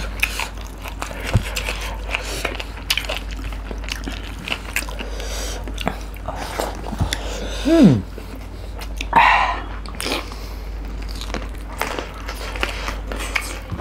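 Close-miked eating: chicken curry and rice eaten by hand, with biting, chewing, wet mouth clicks and lip smacks. About eight seconds in, a short falling hum from one of the eaters is the loudest moment.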